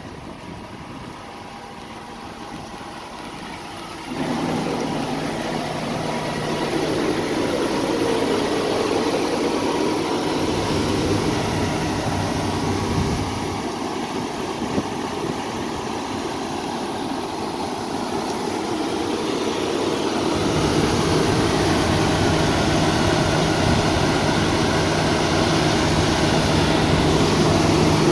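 PACCAR MX-13 inline-six diesel of a semi truck idling steadily, heard from inside the cab. About four seconds in, a broad rushing noise comes in over it and stays, getting louder toward the end.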